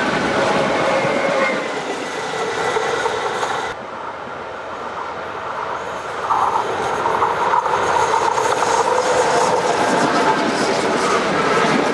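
Electric Lidingöbanan trams passing close on the rails: wheel-on-rail rolling noise and motor tones. The sound drops suddenly about four seconds in, then builds again as another tram approaches and passes close by.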